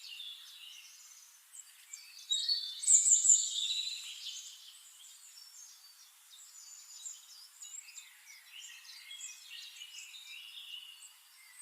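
A flock of sparrows chirping and twittering, many short overlapping calls, loudest for a couple of seconds about two seconds in.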